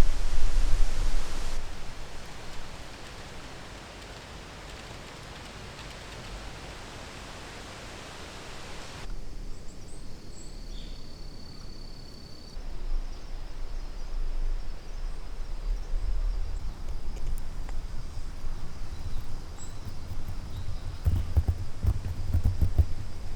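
Outdoor woodland ambience: a steady rushing noise for the first several seconds, then quieter surroundings with a thin, steady high-pitched insect call and low knocks and rustling towards the end.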